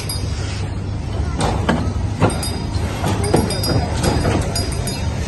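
Men's voices calling out, with a few sharp knocks, over a steady low rumble, as cattle are led off a truck.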